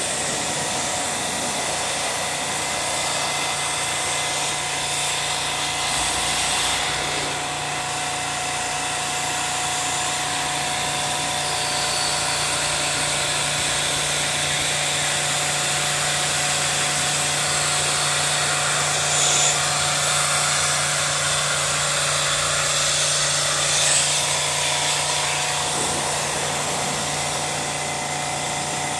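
Electric high-pressure washer running steadily, its pump motor humming under the hiss of a water jet rinsing an air conditioner's heat exchanger.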